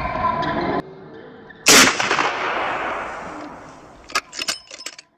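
Background music cuts off about a second in. Then comes a single loud sniper-rifle gunshot sound effect with a long echoing decay, followed near the end by a few short sharp clicks.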